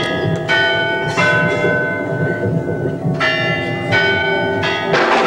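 Church bell struck several times, each stroke ringing on over the last. Near the end a sudden roll of thunder with rain comes in.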